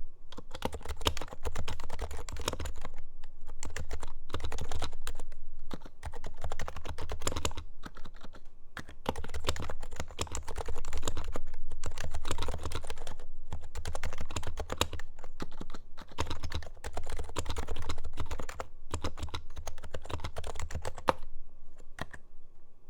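Continuous fast typing on an HHKB Hybrid Type-S keyboard with silenced Topre switches: a dense run of soft key strokes with short pauses. The typing stops near the end.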